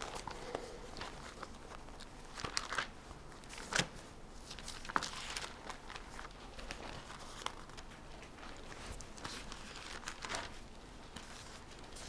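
Thin Bible pages rustling and being turned over as the verse is looked up: faint crinkling with scattered soft clicks and flicks, a little louder about four and five seconds in and again near ten seconds.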